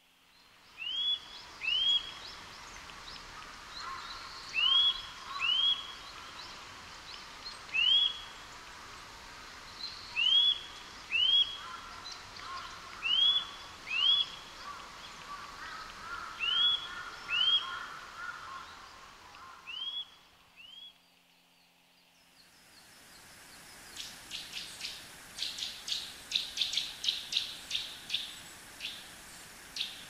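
Eurasian nuthatch singing: clear whistled notes, each sliding up and then down, given mostly in pairs every two to three seconds. After a short pause, a fast run of short, sharp notes, several a second, for about five seconds near the end.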